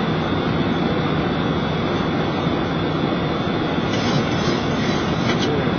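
Steady rushing noise inside a Boeing 737 cockpit in flight: airflow over the airframe mixed with the hum of the jet engines, even and unbroken.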